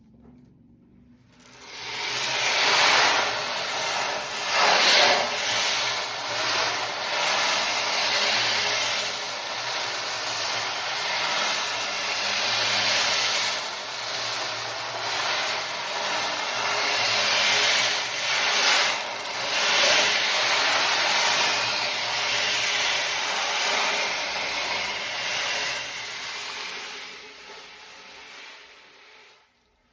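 A sound-bath percussion instrument swished or rolled continuously, giving a rushing, swishing noise that swells and ebbs like surf. It starts about a second and a half in and fades away near the end.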